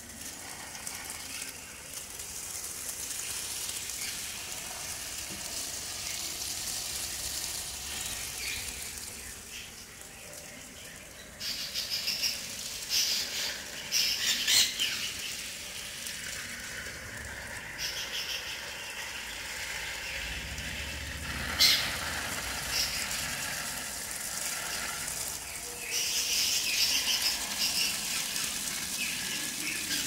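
Garden hose spray nozzle hissing as it sprays water onto the potting mix and leaves of potted plants. Louder, choppier stretches come about a third of the way in and again near the end.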